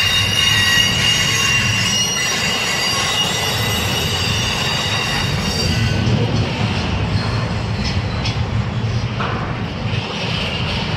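Double-stack intermodal freight train's well cars rolling past with a steady low rumble. The wheels squeal in several high steady tones that fade out about six seconds in, and a few faint clicks follow.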